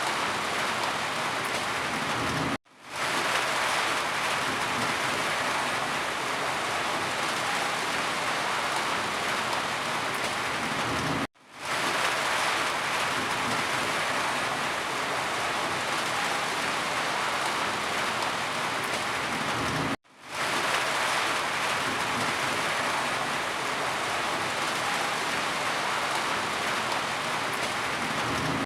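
Steady rain falling, an even hiss of drops. Three times, about every nine seconds, the sound cuts out for an instant and fades quickly back in.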